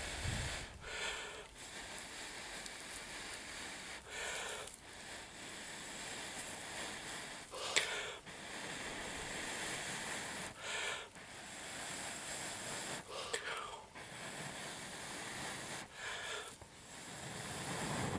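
A person blowing into a smouldering cedar-bark tinder nest in six short puffs, about three seconds apart, coaxing a bow-drill ember into flame.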